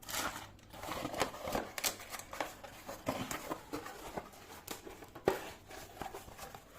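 Soldering iron kit and its box being handled: irregular small clicks, taps and rustles of parts and packaging, with one sharper click about five seconds in.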